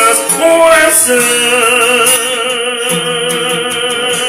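A man sings a hymn line, holding a long note with vibrato from about a second and a half in. He accompanies himself by strumming a classical guitar.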